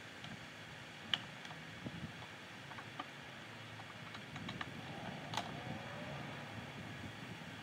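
Scattered light clicks and knocks of a long vinyl K-style gutter section being handled and shifted against the roof edge, the sharpest about a second in and another about five seconds in.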